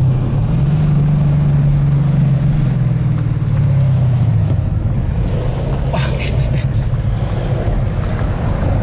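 Tuned 2017 Ford Mustang GT's 5.0-litre V8 with modified exhaust, heard from inside the cabin while driving: a steady low drone that rises a little about half a second in and eases off after about four and a half seconds.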